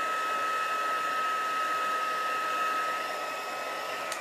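Handheld embossing heat tool blowing hot air steadily, its fan motor giving a constant whine, while it heat-sets embossing on a cardstock tag. It is switched off right at the end, the whine falling as the fan spins down.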